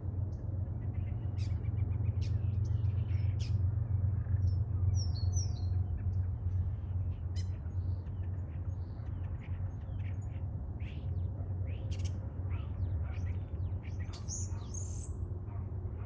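Common starlings calling: a run of short clicks and chatters with a few whistled notes, the clearest about five seconds in and again near the end, over a steady low rumble.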